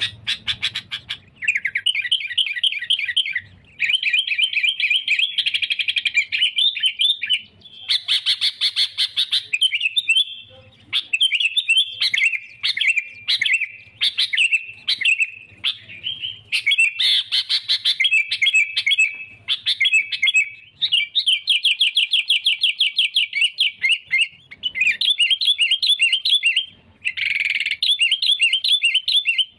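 Caged sooty-headed bulbul singing in full agitated challenge song: runs of rapid, bubbling chattering trills, phrase after phrase with short pauses between them. This is the fired-up song used to lure and provoke wild bulbuls.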